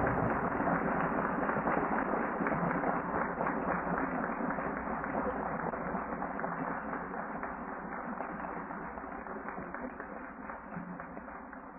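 Audience applauding, heard on an old audio tape with the highs cut off, fading out gradually.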